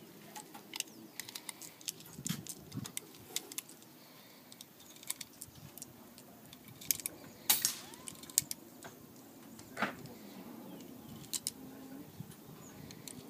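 Cartridges being pressed one at a time into the double-stack magazine of an Ekol Firat Compact traumatic pistol: a string of small, sharp metallic clicks at irregular intervals, the loudest about seven and a half seconds in.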